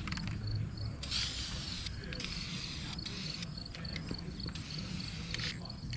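Aerosol spray-paint can hissing in about four short bursts, each around a second long, as engine parts are painted black, over a steady low hum.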